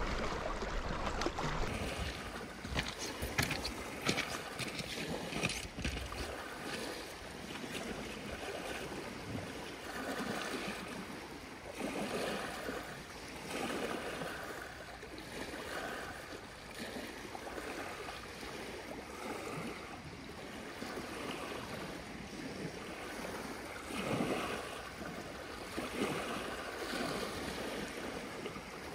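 Small lake waves lapping and washing onto a pebble shore, swelling and falling every couple of seconds. Wind buffets the microphone during the first few seconds.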